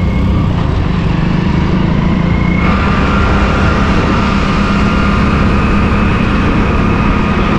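100cc motorcycle's single-cylinder engine running steadily at riding speed, heard from the rider's seat with a constant rush of wind and road noise. About two and a half seconds in the sound shifts and a steady high whine joins it.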